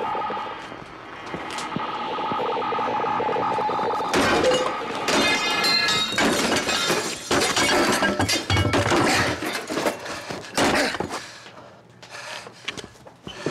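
Glass shattering and crashing, starting about four seconds in and going on for several seconds as a dense run of breaking impacts with clinking, ringing pieces, then tailing off.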